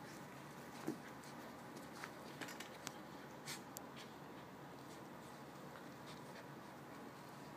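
Two small dogs play-fighting on carpet: faint scuffling and a scatter of short clicks and taps, the sharpest about a second in, over a steady low hiss.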